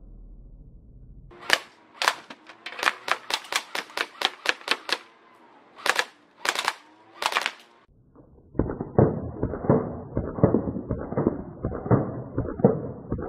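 Electric airsoft H&K UMP firing on semi-auto: a quick run of about a dozen sharp shots, then three more spaced about half a second apart. From about eight and a half seconds in, a rough crackling rustle, wind on the microphone.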